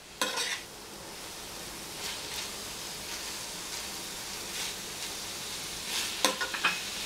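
Fried cauliflower in a sticky sauce sizzling in a frying pan while being stirred with a metal spoon: the spoon scrapes and knocks against the pan at the start and again near the end, with a steady sizzle in between. This is the final stir-fry stage as the sauce cooks onto the cauliflower.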